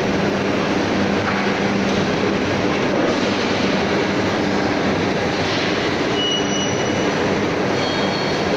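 Metal lathe running in a large machine workshop: a loud, steady mechanical din with a low hum, and a few brief high squeals in the second half.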